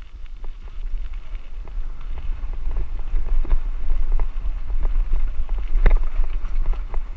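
Wind rumbling on a helmet camera's microphone during a bicycle ride down a bumpy dirt track, with frequent small knocks and rattles from the bumps and one louder knock about six seconds in.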